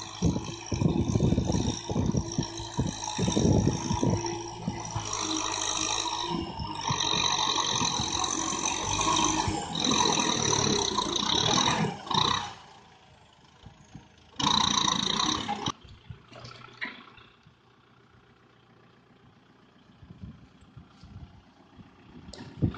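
Kubota M6040SU tractor's diesel engine running under load as it ploughs dry ground with a disc implement, with clattering from the soil work. About halfway through the sound drops to a faint background, broken once by a short loud burst.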